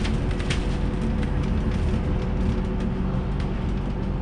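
Cabin noise of a moving bus: the engine's steady drone and road rumble, with a few light rattles.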